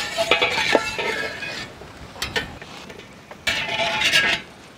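Metal ladle clinking and scraping against a steel plate and pot as fried raisins are tipped out, with dense rattling in the first second and a half and a loud burst of metallic clatter and ringing near the end.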